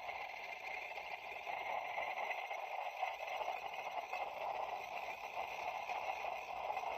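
A chorus of Japanese tree frogs, many calling at once in a steady overlapping din.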